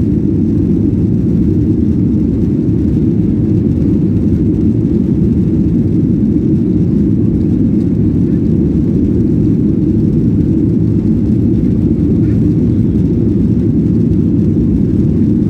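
Jet airliner cabin noise while the plane speeds along the runway: a loud, steady low rumble of engines and wheels, heard from inside the cabin.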